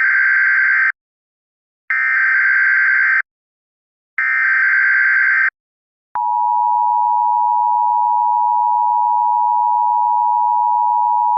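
Three bursts of Emergency Alert System SAME header data, each just over a second long with a short gap between them, then a steady single-pitch alert tone starting about six seconds in. Together these open an emergency alert broadcast.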